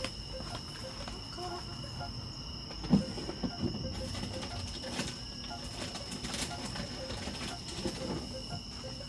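Night insects trilling steadily in two high, unbroken tones, with a faint low call repeating about twice a second underneath. A single soft thump about three seconds in.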